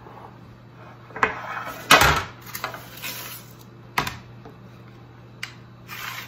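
A metal baking sheet set down on a granite countertop, then ceramic baking dishes knocking and sliding on it as they are placed and shifted into position. There are a few sharp knocks, the loudest about two seconds in and another near four seconds, with scraping between them.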